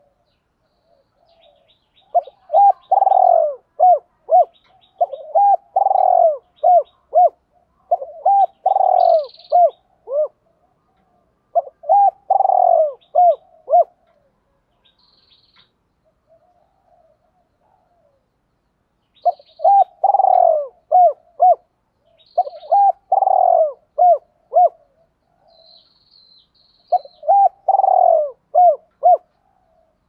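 Spotted dove singing its cooing song: seven loud phrases, each a strong drawn-out coo followed by a quick run of shorter coos, with a pause of about five seconds midway.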